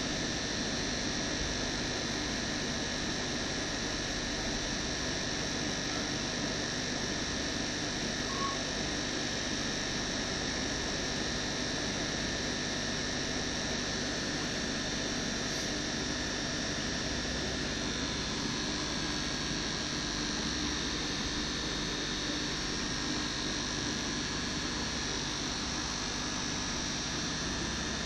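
Aquarium pump running: a steady hum and hiss that does not change.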